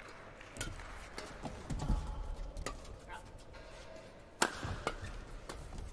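Sharp, separate clicks of badminton rackets striking a shuttlecock, the loudest about four and a half seconds in, among fainter taps on the court.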